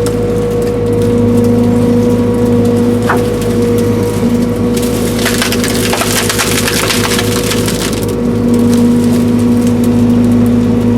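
Link-Belt 210 excavator's diesel engine running steadily under load while the machine works the felled tree and dirt, with crunching and scraping of wood and brush, heaviest about halfway through.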